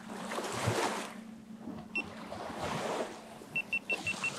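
Small river waves washing against a sandy bank, swelling and fading in surges, with wind on the microphone. A single short high beep about halfway, then a quick run of about seven near the end.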